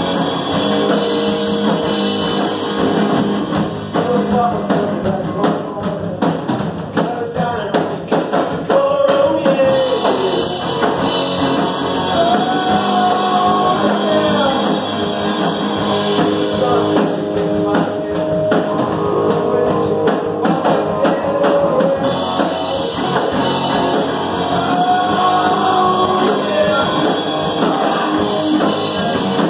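Live rock band playing: electric guitars and a drum kit, with a voice singing the melody over them.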